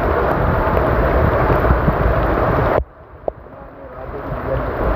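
Heavy rain pouring, with wind buffeting the microphone in a low rumble. About three seconds in the sound drops sharply to a quieter hiss, then builds again.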